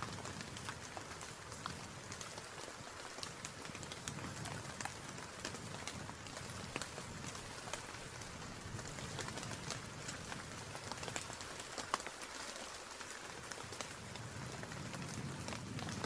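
Steady rain: an even hiss full of small drop ticks, over a low wind rumble that swells and eases.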